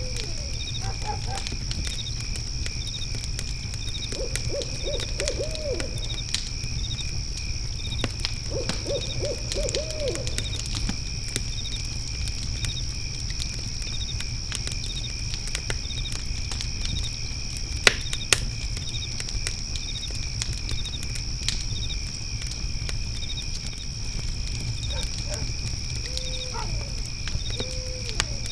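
Owl hooting: two runs of quick, wavering hoots in the first ten seconds and two short hoots near the end. Underneath, crickets trill and chirp steadily, and a fire pit crackles with scattered pops, two sharp ones a little past the middle.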